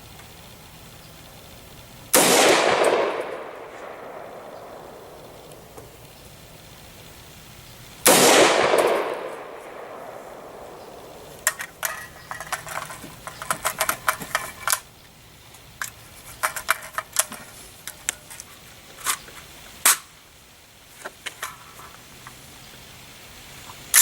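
Two single shots from an AR-15 pistol with an 8.5-inch barrel, about six seconds apart, each ringing out in a long echoing fade. After them comes a run of short sharp clicks and clatter, and another shot goes off right at the end.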